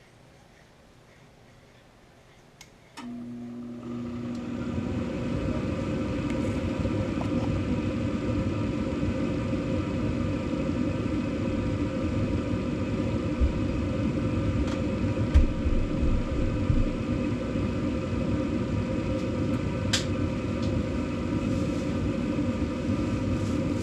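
A 2012 Bryant Legacy Line gas furnace starting up for its first run of the heating season. After a small click, a motor hum comes on suddenly about three seconds in and spins up within a second into a steady rushing fan noise, typical of the draft inducer fan starting the ignition sequence. A few light ticks come through the run.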